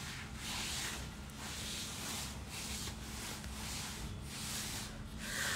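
Soft rustling of a silk saree being handled, in a series of brief swishes, over a faint steady hum.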